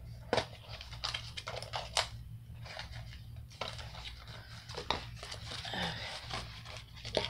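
Diamond painting kit's box and plastic packaging being unpacked by hand: irregular rustling and scraping with a few sharp clicks and knocks, over a steady low hum.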